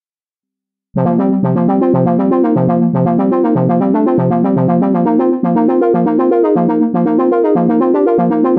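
GForce Oberheim SEM software synthesizer playing a demo patch: a rhythmic run of repeated pitched notes over a pulsing bass line, starting about a second in. It is heard dry, with no external effects processing.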